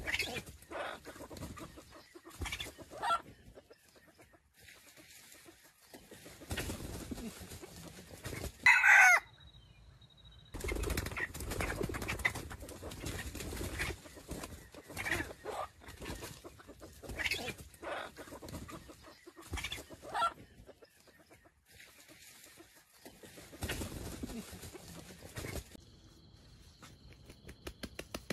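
Red junglefowl rooster giving short clucking calls scattered through, with one much louder short call about nine seconds in. Wings flap near the end.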